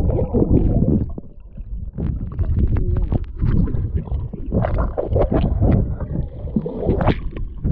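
Muffled underwater rumble and gurgling of a spring run's current flowing around a submerged camera, with scattered small knocks and clicks, swelling and easing unevenly.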